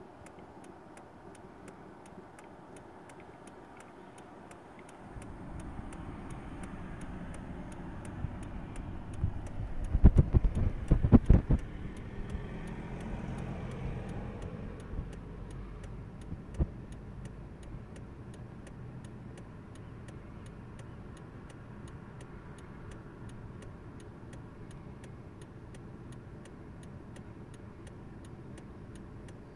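A car drives slowly past. Its engine and tyre noise rises from about five seconds in, peaks with a burst of loud knocks, and fades away by about sixteen seconds. A faint, even ticking runs underneath throughout.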